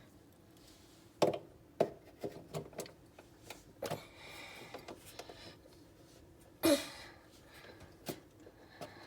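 Objects being shifted and a plug pushed at a wall outlet: a string of separate sharp clicks and knocks, the loudest about two-thirds of the way in, with some rustling handling noise in between.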